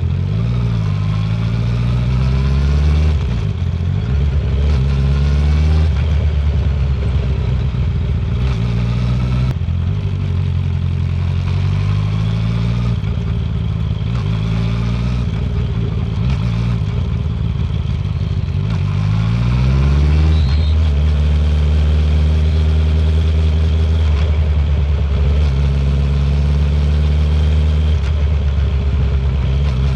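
Honda CB650R inline-four motorcycle engine through a full Akrapovic titanium exhaust, ridden steadily with the revs rising and falling. The revs climb sharply about twenty seconds in, then hold steady at a higher pitch.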